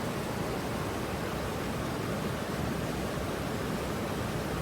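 Steady rush of water from a river waterfall.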